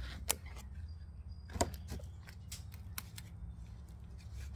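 Small hand trowel digging soil in a cut plastic bottle planter, making a few sharp clicks and knocks against the plastic over a steady low hum.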